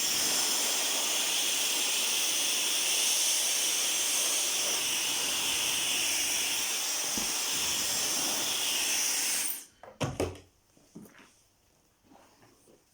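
Dyson Supersonic hair dryer blowing a steady rush of air, cut off abruptly about nine and a half seconds in, followed by a few light handling knocks.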